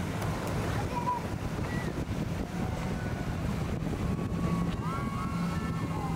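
Donzi center-console boat's Mercury outboard engines droning steadily as it runs fast through choppy inlet water, with water rush and wind buffeting the microphone. A few short high whistling tones come in during the second half.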